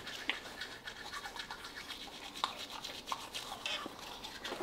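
Teeth being brushed with toothbrushes: quick, faint back-and-forth scrubbing strokes.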